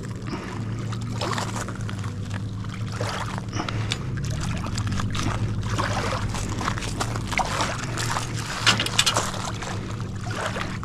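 Motorboat engine running steadily on the river, a constant low drone, with scattered short knocks and rustles close by, the loudest near the end.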